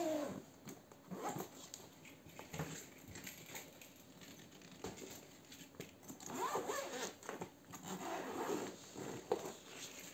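Zipper on a Carlo Gattini Lamberto leather laptop bag being pulled open along its main compartment, a rasping zip run mostly in the second half, after a few short handling knocks and rustles of the bag.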